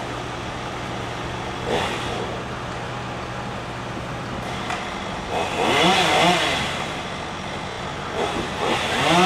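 Husqvarna chainsaw running at idle, then revved up twice, its pitch rising and falling, about halfway through and again near the end.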